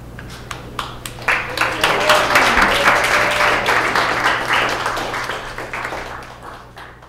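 Audience applause: a few scattered claps that swell within about a second and a half into full clapping, then fade out near the end.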